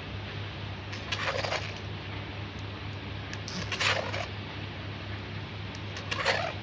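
A hammer striking metal three times, about two and a half seconds apart, each blow with a short metallic clink, while a part is being knocked into place. A steady low hum runs underneath.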